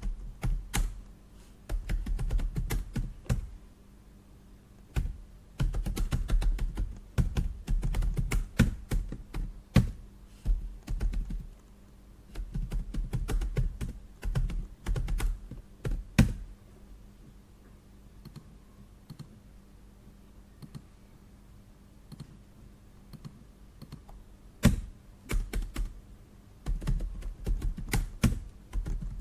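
Typing on a computer keyboard in bursts of rapid key clicks, stopping for several seconds after the middle before starting again, over a faint steady low hum.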